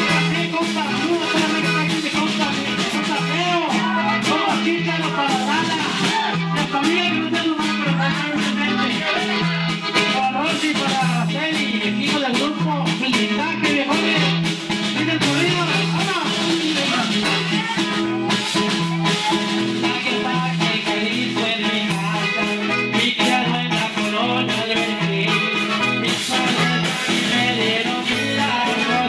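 Live norteño corrido: button accordion, guitar and drum kit playing over a bass line that bounces between two notes on an even two-beat rhythm, with a man singing into a microphone.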